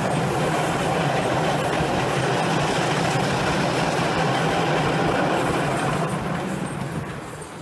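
Light railway train running, heard from on board: a steady rolling noise of the wheels on the track and the locomotive, easing off near the end.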